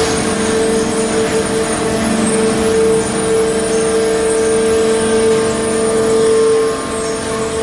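Industrial bulky-waste shredder running: a loud, steady machine hum with a strong high whine, easing slightly about seven seconds in.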